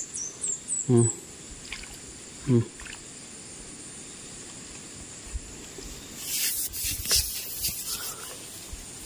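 Water splashing and trickling with rustling, loudest from about six to eight seconds in. Earlier come two brief voice sounds and a few quick high descending chirps.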